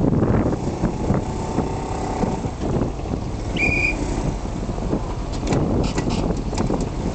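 Engine rumble of a step-through motorbike riding slowly onto a small ferry's deck, over the docked ferry's own running engine. A short high beep comes about three and a half seconds in, and a few sharp clicks and knocks near the end.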